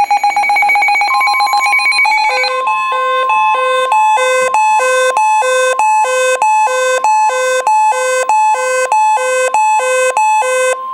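Weather alert radios sounding a severe thunderstorm warning alarm. A fast-pulsing beep in the first two seconds gives way to a steady high warning tone. Over it runs an electronic alarm alternating between a low and a higher beep about twice a second, stopping abruptly near the end.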